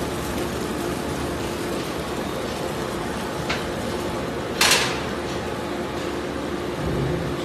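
Recycling-plant conveyor line running: a steady machinery noise with a constant hum as mixed waste pours off a rotating drum onto an inclined belt. A single loud clattering crash comes a little past halfway.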